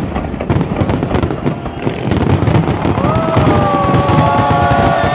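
Fireworks display: a dense, rapid run of crackling bangs, with several long, steady high tones joining about three seconds in.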